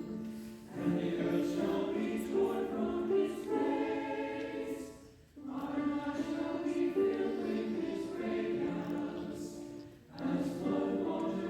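Background music of a choir singing held, sustained phrases that break off briefly about every four to five seconds.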